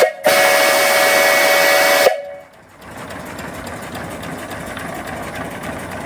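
Antique brass three-chime steam whistle on a live steam boiler, blown with a brief toot and then a loud blast of about two seconds, several tones sounding together as a chord, cut off sharply. Afterwards the small steam engine keeps running steadily underneath.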